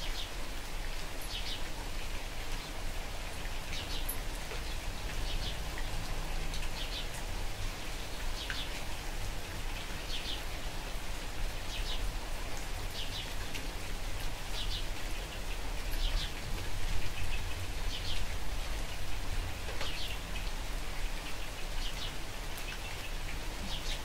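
Light rain falling steadily, with a bird chirping over it: short high chirps every second or so.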